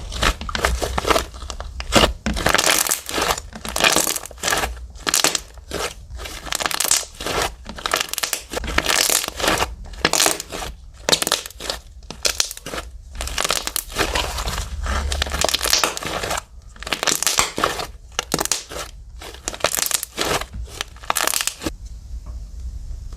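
Fluffy slime squished and stretched by hand, giving a long run of irregular crackling pops that stops near the end.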